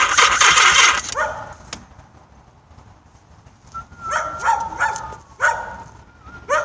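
Yamaha XS1100 engine being cranked over by the starter without catching, cutting off about a second in. Then a dog barks several times in quick succession, with a last bark near the end.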